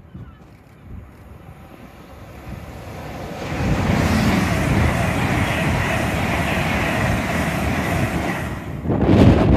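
LNER Class 801 Azuma electric train running through the station at speed: a rushing rumble of wheels on rail and air that swells as it approaches about three seconds in, then holds steady while the coaches pass. Near the end, sudden louder wind buffets the microphone.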